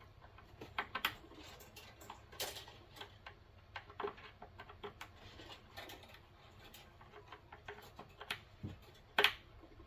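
Irregular light clicks and taps of wires being handled and taken off a fire alarm control panel's terminals, with a louder click about nine seconds in.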